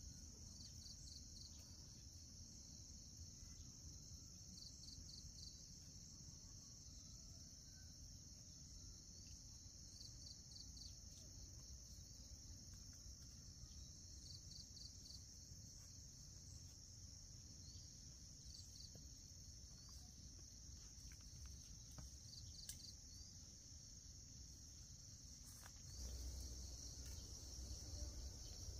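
Faint insect chorus: a steady, high, unbroken trill, with a short chirp of four or five quick notes repeating about every four seconds. Near the end a low rumbling noise comes in under it.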